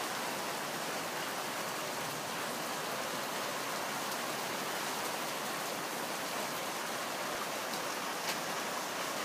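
Rain falling steadily, an even hiss, with a couple of faint ticks about eight seconds in.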